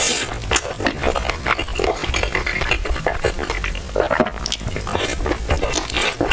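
Close-miked eating sounds: wet chewing and lip-smacking, made of many quick irregular clicks and smacks.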